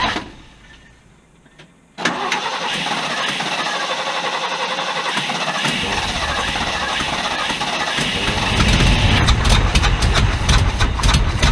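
Starter cranking the 1974 Ford F-350's 390 V8, which turns over without starting. Cranking cuts in sharply about two seconds in after a short lull, then grows louder with a deeper rumble and sharp pops in the last few seconds.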